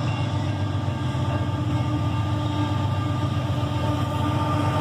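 Diesel freight locomotive passing with a steady low engine rumble and faint steady engine tones, along with rolling rail noise.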